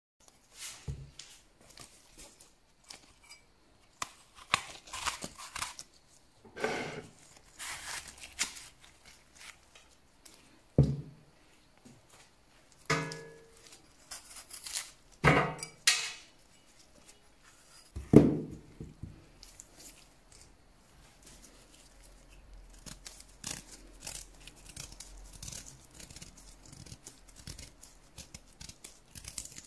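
Kitchen knife cutting and scraping as an apple and then a beetroot are peeled by hand, with a few louder knocks on the wooden cutting board and small scraping strokes toward the end.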